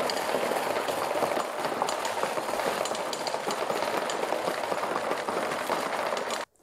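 Automatic marble sorter running flat out at about 14.8 marbles per second: a loud, dense clatter of marbles rattling through its 3D-printed chain feeder and dropping into plastic bins. It cuts off suddenly near the end.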